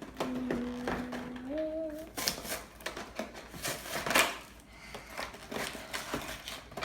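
Toy packaging being worked open by hand: plastic and cardboard crackling with scattered clicks and taps. A short held hum from a child's voice, stepping up in pitch, comes in the first two seconds.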